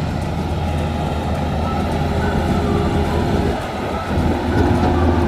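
Bimo 102 Maxxi combine harvester running, its engine and harvesting machinery making a loud, steady mechanical rumble; the sound dips briefly about three and a half seconds in, then comes back louder with a steady higher tone.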